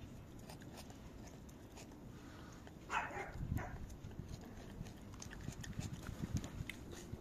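A short animal call about three seconds in, followed by a weaker second one, over faint rustling and scattered light clicks.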